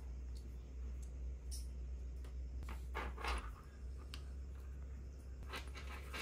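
Faint handling of a padded dog harness with plastic buckles: a couple of soft rustles about three seconds in and a few light clicks, over a low steady hum.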